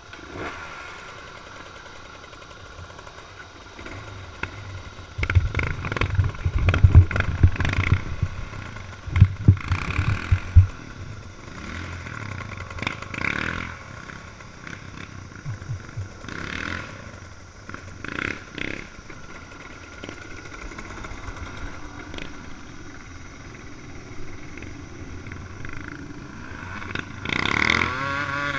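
Dirt bike engines running as a group of trail bikes moves off and rides along a dirt track, with a run of loud, uneven low thumps for several seconds in the middle. Near the end one engine revs up and back down.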